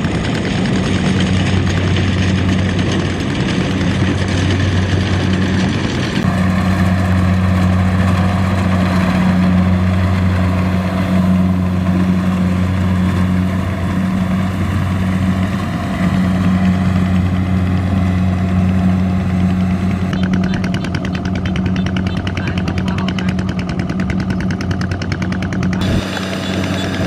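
Rice-harvesting tractor's engine running steadily with a deep, even hum. The sound changes abruptly a few times, as from one shot of the machine to another.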